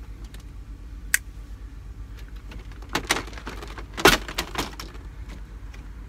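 Clicks and knocks of a Toshiba window air conditioner's plastic side panels being handled and adjusted as the unit is wedged into place, the loudest knock a little past four seconds in. Under it runs the steady low hum of the van's engine idling.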